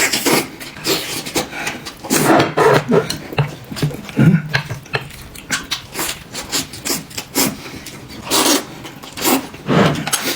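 A person eating noisily close to the microphone: irregular slurps and chewing noises with short clicks.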